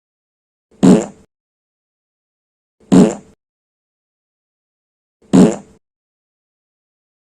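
Fart sound effect: three short, low, raspy farts about two seconds apart, alike in shape, with silence between them.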